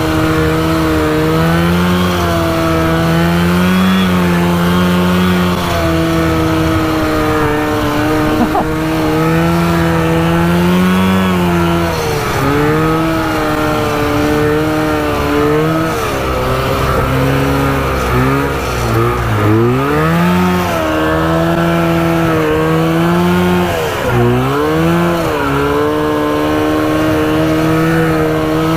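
Two-stroke engine of a 1970s 400cc PPT mini off-road tank running steadily, its pitch rising and falling with the throttle and dropping sharply twice in the second half. It runs consistently now that the ignition points have been adjusted and cleaned.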